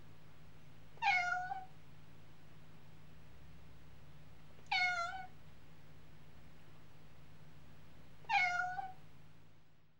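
Domestic cat meowing three times, evenly spaced about three and a half seconds apart. Each meow is short and dips slightly in pitch at its end. A faint steady low hum runs underneath, and everything fades out near the end.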